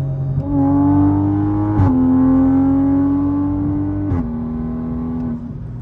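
Toyota GR Supra with an RK exhaust accelerating hard under load, heard from inside the cabin. The engine note climbs steadily through each gear and drops in pitch at two upshifts, about two and four seconds in, with a brief crack at each shift.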